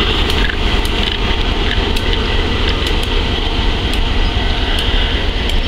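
Class 59 diesel locomotive and its stone wagons passing slowly, with a steady low engine rumble, a high hiss and scattered wheel clicks over the rail joints.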